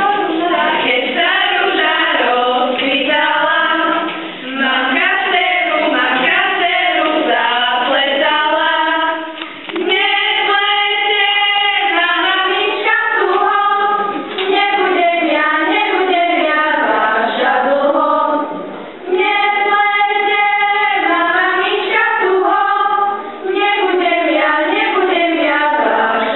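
A group of children and girls singing an unaccompanied Slovak folk wedding song in unison, in phrases of long held notes with short breaks between them about every four to five seconds. It is the song sung as the bride's maiden wreath is taken off and she is given the married woman's headscarf.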